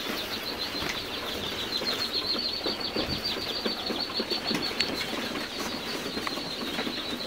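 A large brood of young partridge chicks peeping nonstop, a dense chorus of many high, overlapping peeps.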